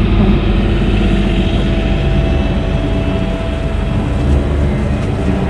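Sailboat's inboard diesel engine running steadily while motoring slowly.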